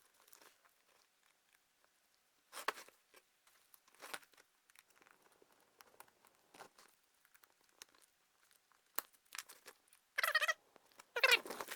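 Scattered crackling and rustling of plastic wire loom and tape being pulled off a wiring harness, then several short, wavering high squeaks near the end.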